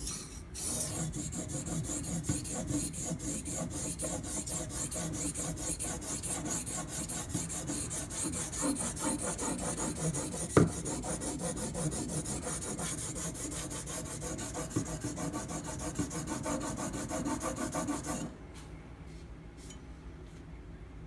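Steel kitchen knife blade, clamped in a sharpening guide, scraped back and forth on a sharpening stone in rapid, even strokes while the bevel is ground toward a burr. A single sharp click comes about halfway through, and the grinding stops about three seconds before the end.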